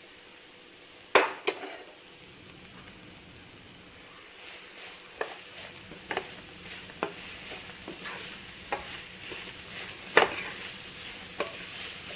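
A spoon stirring chopped raw papaya into a pan of frying onion and grated coconut, knocking and scraping against the pan about once a second, with a loud knock about a second in and another near the end. A frying sizzle builds up about four seconds in.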